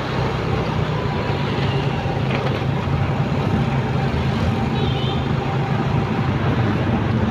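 Motorcycle engine running steadily while riding in city traffic, a low hum under road and wind noise.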